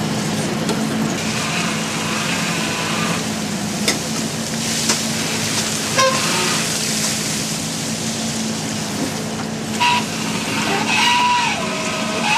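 Fishing boat's engine running steadily, a low hum under a wash of noise, with a few sharp knocks in the middle and a brief tone that falls in pitch near the end.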